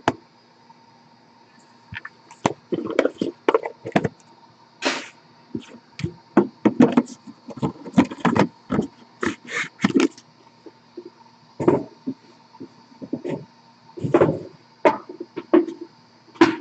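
Hands handling white cardboard trading-card boxes and a hard plastic card case: irregular knocks, taps and sliding scrapes.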